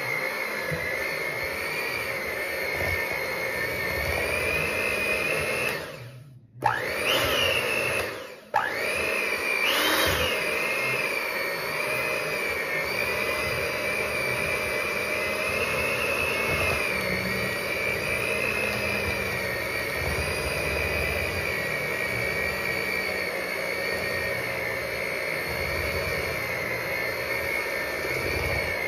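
Electric mixer running steadily with a high motor whine as it mixes cookie dough. It cuts out briefly twice, about six and eight seconds in, and spins back up to speed each time.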